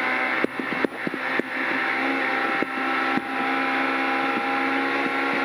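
Peugeot 208 Rally Cup's engine heard from inside the cabin, pulling hard at steady revs along a gravel straight. A few short knocks sound in the first three seconds.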